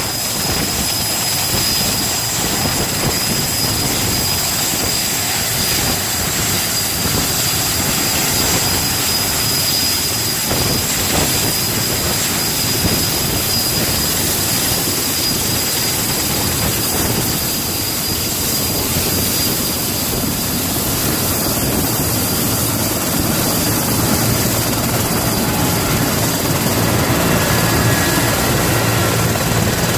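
Erickson S-64 Air-Crane heavy-lift helicopter running, its turbine engines and rotor making a steady rush with a high, steady turbine whine over it; it grows slightly louder near the end.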